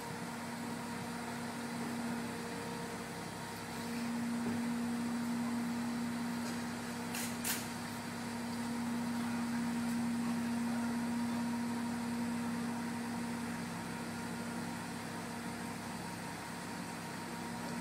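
Boat travel lift's engine running steadily with one held pitch as the hoist drives across the yard carrying a houseboat, louder for several seconds in the middle. A brief sharp click about seven seconds in.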